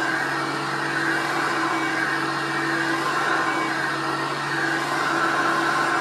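Hoover Concept One U333 upright vacuum cleaner running steadily while pushed over carpet: a constant motor hum and rush of air, its transmission freshly rebuilt.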